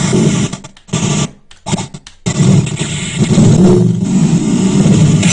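Loud, distorted noise cut into short chunks, with a brief break a little over a second in, then a longer stretch of dense noise.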